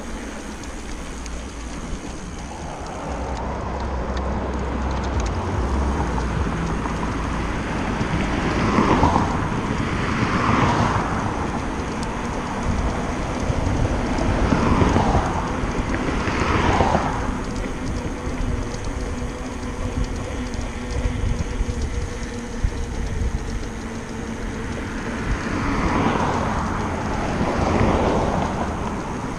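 Cars passing on the road alongside, each one's noise swelling and fading, about six in all, coming in pairs. Under them runs a steady rush of wind and tyre noise from riding.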